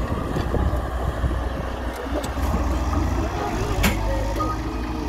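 Diesel engine of a Hyundai Robex 1300W wheeled excavator running steadily while it loads earth, with one sharp knock just before four seconds in.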